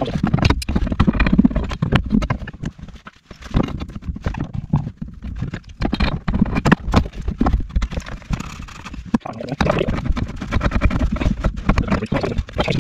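Irregular knocks and clatter of plumbing tools and pipe fittings being handled on pipework and wooden slats, over a continuous close rustle and rumble of handling.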